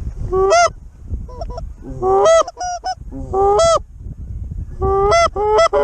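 Canada-goose honks and clucks blown on a goose call, a fast run of loud calls in irregular groups, each rising and then breaking sharply upward in pitch, calling to geese coming in low to the decoys.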